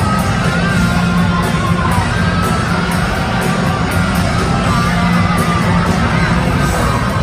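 Loud music playing steadily, with a wavering melody line over a constant low bass.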